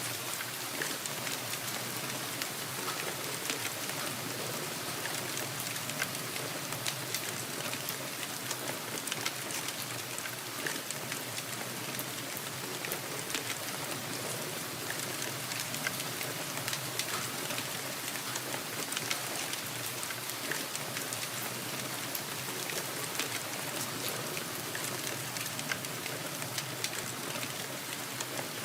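Steady rain falling: an even hiss of rainfall with many individual drops ticking through it.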